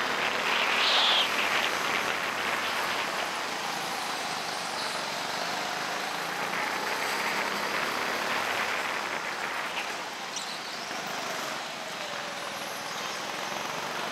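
Go-kart running around the track, heard from onboard: a steady engine drone mixed with running noise. It is briefly louder about a second in, and its pitch sinks toward the end before climbing again.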